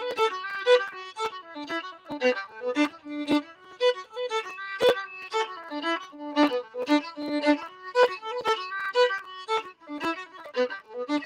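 Solo fiddle playing a fiddle tune, a steady stream of quick bowed notes in an even, lively rhythm.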